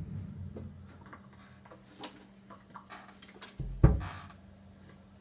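Handling noise as an acoustic guitar is picked up and settled into playing position: scattered light clicks and knocks, with one louder thump about four seconds in. A low ringing dies away at the start, and a steady low hum runs underneath.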